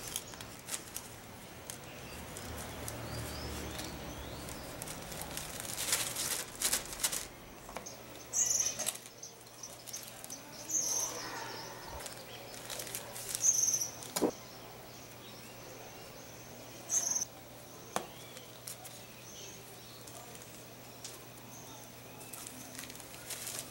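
Hand-forged leaf-spring steel garden trowel digging and scooping potting soil in a plastic planter: a series of short scrapes and rustles with pauses between them.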